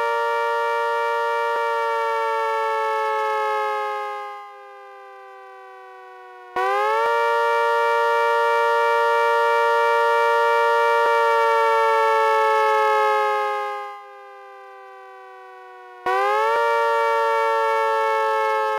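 Synthesized ACA Hurricane MKII civil defense siren sounding its attack signal. The siren chord winds down and dies away, then twice comes back with a quick rise to full pitch, holds steady, and sags into a slow wind-down, on a cycle of roughly ten seconds.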